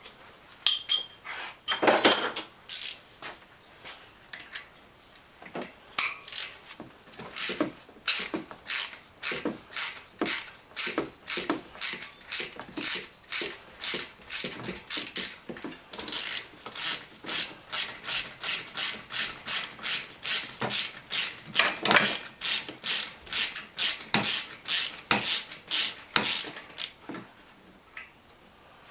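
Socket ratchet backing out a freshly loosened alternator mounting bolt, its pawl clicking on each back-stroke. A long, even run of about two clicks a second that stops shortly before the end.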